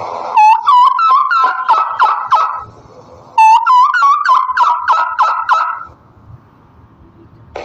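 Turkey gobbling twice: each gobble is a rapid, warbling rattle of notes lasting about two and a half seconds, with a short pause between the two.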